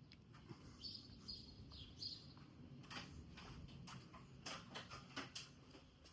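Near silence: faint scattered clicks and taps, with a few short, faint high chirps, like a bird's, about one to two seconds in.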